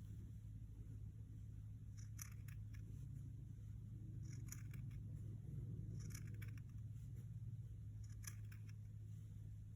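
Scissors snipping through a folded fabric strip, cutting fringe: short double snips about every two seconds, four times, over a steady low hum.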